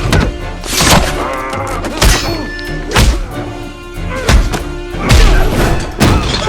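A fist fight's hits: about six heavy punch and body-slam impacts, roughly one a second, over a dramatic film score.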